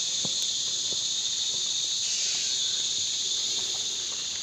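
Insect chorus in tropical forest: a steady, high-pitched shrill drone that does not let up, with a few faint clicks beneath it.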